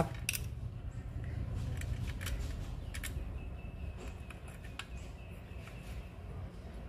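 Scattered light metallic clicks of a small hand tool turning the ignition coil's mounting bolt on a Honda GX35 engine as it is tightened, about five over several seconds, over a low steady background rumble.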